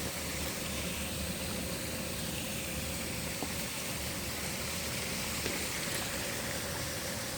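Steady rush of water from a river waterfall, an even hiss with no breaks, with a faint steady hum underneath.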